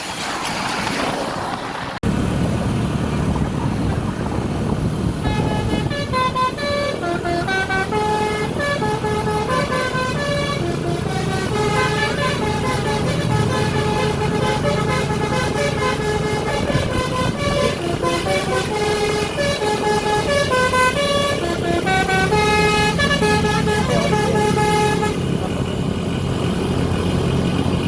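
A bus's multi-tone basuri 'telolet' horn playing a melody of stepped, held notes. The melody starts about five seconds in and stops near the end, over the bus engine running.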